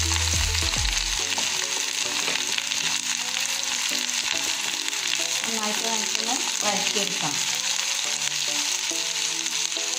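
Sliced onions sizzling and frying in hot coconut oil in a nonstick pan, stirred with a wooden spoon.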